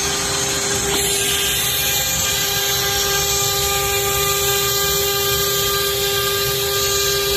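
CNC woodworking router running steadily: the spindle gives a constant whine made of several steady tones over a rough noise of machining.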